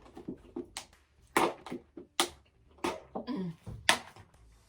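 Close-up eating sounds: a series of about six sharp clicks and smacks, with a faint murmur or two among them.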